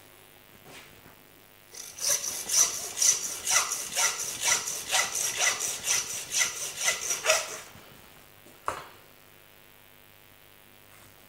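Butcher's hand bone saw sawing through a ram's shoulder: a run of quick back-and-forth rasping strokes, about two a second, starting about two seconds in and lasting some six seconds. A single knock follows about nine seconds in.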